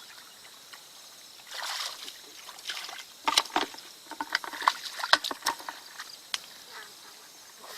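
Water sloshing and splashing: a short rush of splashing about two seconds in, then a run of sharp splashes and knocks for about three seconds.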